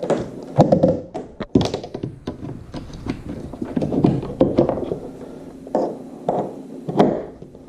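An irregular string of thunks, knocks and taps from gear being handled on a plastic kayak, some with a short ring after them.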